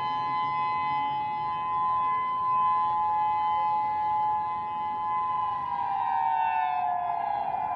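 Outdoor civil defense warning siren sounding a steady two-note tone during a scheduled test. About five and a half seconds in, the pitch starts falling as the siren winds down at the end of the signal.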